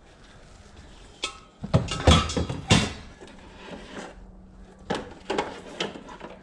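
Items being handled and moved about: a run of knocks and clattering, loudest in a cluster about two to three seconds in, with a few lighter knocks later.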